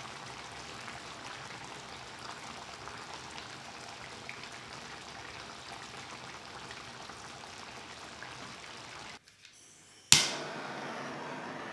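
Braised pork humba simmering in its sauce in a pan, a steady soft bubbling. About nine seconds in the sound drops out briefly, then a handheld kitchen torch lights with a sudden loud burst and settles into a steady hissing flame.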